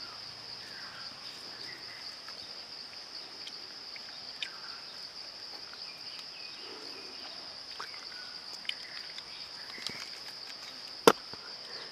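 Insects droning steadily in a high, even tone, with a few faint ticks and one sharp click near the end.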